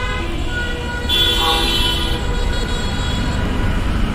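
Road traffic rumbling steadily, with a vehicle horn honking for about a second, starting about a second in.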